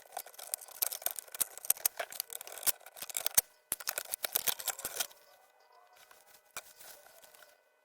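Rapid, dense clicking and rustling, as of small objects being handled, stopping about five seconds in, after which only a few faint clicks remain.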